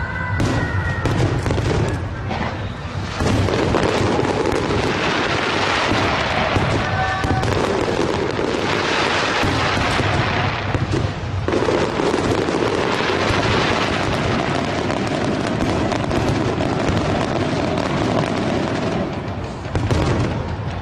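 Large aerial fireworks display: a dense, continuous run of bangs and crackling shell bursts, with music underneath.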